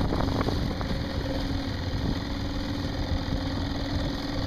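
Motor of a motorized canoe running at a steady speed, a steady engine hum over the rush of water and wind.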